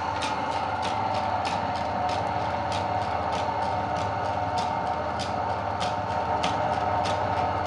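Electric meat grinder running steadily, its motor humming with a regular clicking about three times a second.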